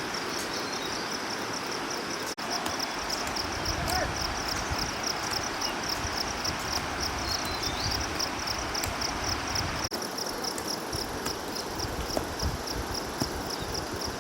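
Insects chirping in a fast, even, high-pitched pulse, about four chirps a second, over a steady outdoor background hiss.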